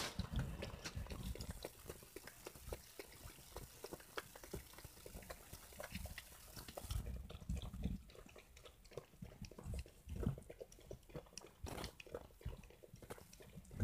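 Small poodle-type dogs lapping milk from a paper cup, a rapid, irregular run of wet licking clicks.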